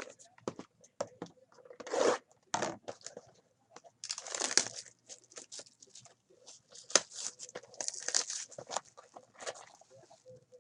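Foil trading-card pack wrappers crinkling and tearing as a pack is opened, with cards being handled. It comes as irregular crackling bursts and sharp ticks.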